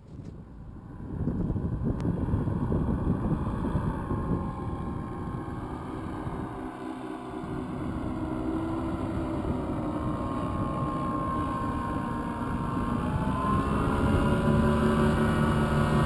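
Powered paraglider's (paramotor's) engine droning, growing louder toward the end as it flies low overhead, with wind rumbling on the microphone.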